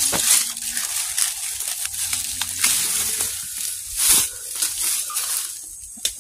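Crunching and crackling of dry leaves and undergrowth being trodden or pushed through, with a louder crunch at the start and another about four seconds in.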